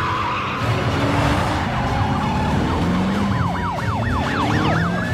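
Police car siren yelping: fast rising-and-falling sweeps, about four a second, coming in about two seconds in, over a low rumble.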